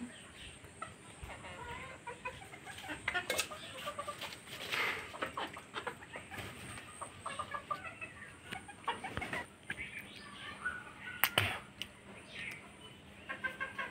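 Chickens clucking in short repeated calls, with a sharp knock about eleven seconds in.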